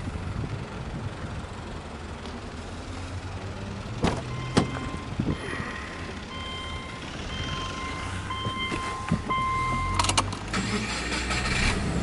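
Inside a Subaru Legacy B4 with the engine off: a couple of sharp clicks from the door or latch, then an electronic warning chime beeping at a high pitch for several seconds. About ten seconds in, clicks from the ignition key turning on, followed by a brief hiss as the dashboard powers up, all over a steady low rumble.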